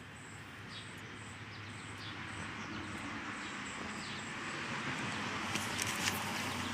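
Rushing noise of a passing motor vehicle with a low hum, swelling louder through the second half, with a few faint chirps over it.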